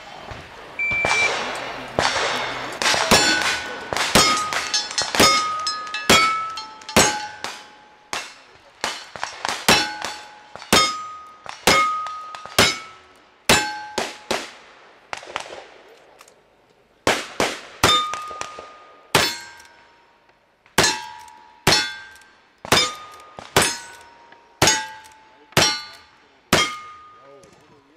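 Rapid string of black-powder gunshots from a revolver and then a rifle, coming every second or so with a short pause in the middle. Most shots are answered by the ring of a struck steel target.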